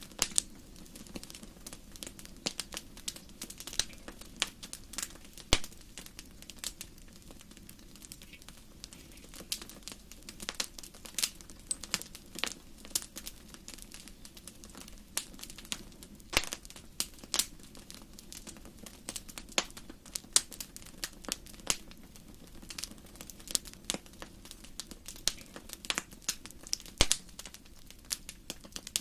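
Wood campfire crackling: irregular sharp pops and snaps, several a second at times, over a low steady rush of burning.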